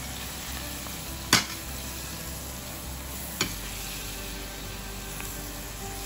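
Pieces of fried pork sizzling in oil in a pan while being stirred with shrimp paste and annatto. Two sharp knocks cut through the sizzle, the louder about a second in and a smaller one a couple of seconds later.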